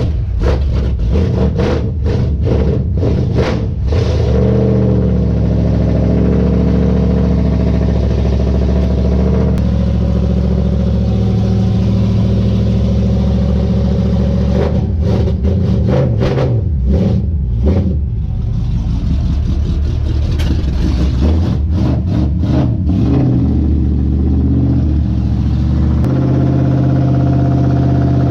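Engine of a 1968 Dodge Charger stock car running loud at idle with repeated throttle blips, its pitch rising and falling several times and settling into a steadier note near the end.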